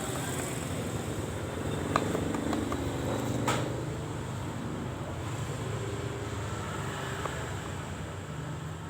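Motor-vehicle traffic running steadily, a low engine hum, with two light sharp clicks about two and three and a half seconds in.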